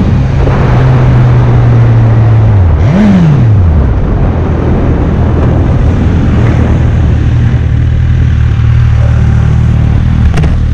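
Sport motorcycle engine running under a rush of wind on the microphone; about three seconds in the revs drop, then jump up and fall back once in a quick throttle blip, and the engine carries on at a lower, steady pitch as the bike slows in traffic.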